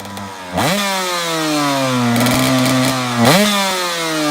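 KTM 125 EXC single-cylinder two-stroke engine revving: the revs rise sharply about half a second in and again about three seconds in, and the pitch falls slowly after each rise.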